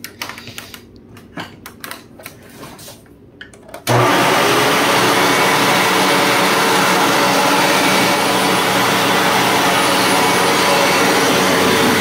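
A few clicks and knocks of handling, then about four seconds in a Hoover WindTunnel Plus upright vacuum is switched on and its motor comes straight up to a loud, steady whir, with the brush roll agitating. It is running with no dust bag fitted.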